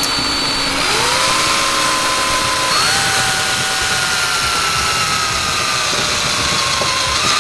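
Cordless drill running under load while drilling a hole through a body-kit over-fender. The motor speeds up about a second in and again about three seconds in, then its whine slowly drops in pitch as the bit bites, and it stops at the very end.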